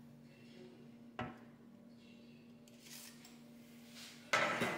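Metal tongs and a roasting pan handled over a stock pot: one light knock about a second in, then a louder clatter near the end, over a faint steady hum.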